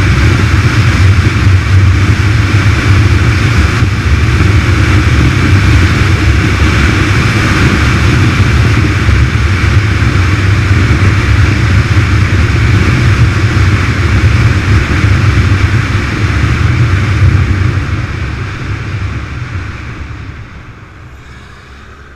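Motorcycle riding at road speed: loud, steady wind rush over the helmet-mounted camera with the engine's low drone underneath. It fades away over the last few seconds as the bike slows.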